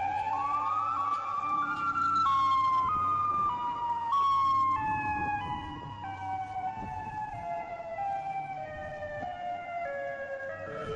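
Eerie siren-like wail used as the Comb Head creature's call: one wavering tone that climbs in small steps for the first few seconds, is loudest near its peak, then steps slowly back down in pitch.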